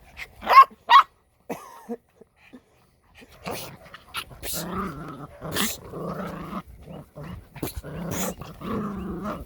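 Puppy giving two sharp yips near the start, then growling in long rough stretches from about four seconds in while it tugs at a pant leg in play.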